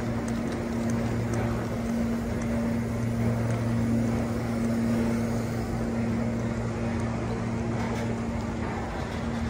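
A steady low machine hum with a constant drone-like pitch, over the general background noise of a large hall.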